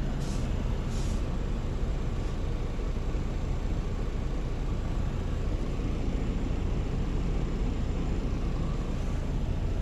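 Steady low rumble of a truck's diesel engine running, heard from inside the cab.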